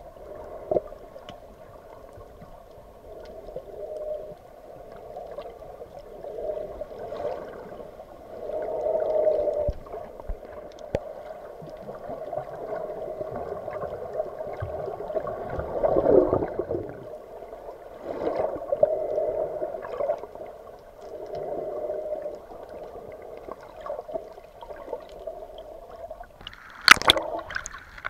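Water sloshing and gurgling, heard muffled through a camera held underwater, swelling and fading with scattered small clicks. Near the end the camera breaks the surface with a loud splash.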